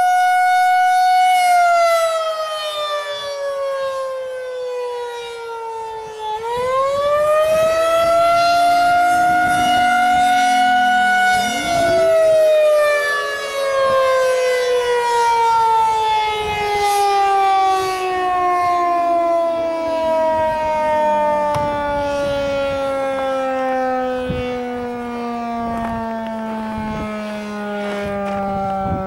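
Federal Signal 2001-SRN civil defense siren sounding a wail. Its howl holds high, sinks over about five seconds, swells back up quickly about six seconds in, then from about eleven seconds falls slowly and steadily as the siren winds down. Other tornado sirens howl more faintly in the background, also falling in pitch.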